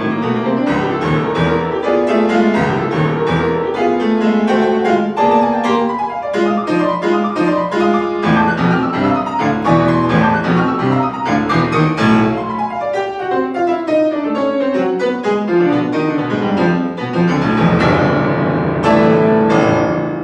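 Steinway grand piano played solo in fast, loud passages, with a long descending run about twelve seconds in and heavy, dense chords near the end.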